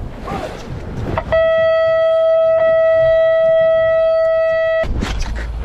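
One steady electronic beep at a single pitch, starting a little over a second in and cutting off sharply about three and a half seconds later. Wind and boat noise lie under it and drop low while it sounds.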